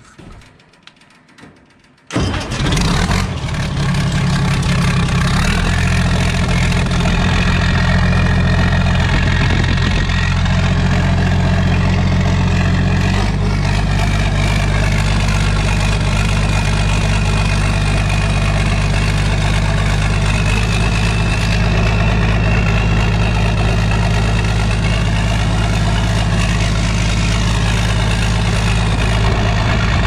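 Turbocharged diesel engine of an International Harvester 1420 combine, straight-piped, catching on a cold start about two seconds in and then running loud and steady, its note shifting a couple of times as it settles.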